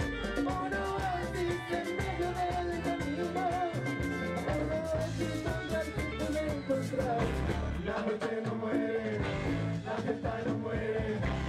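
Live band music with a singer and a steady dance beat.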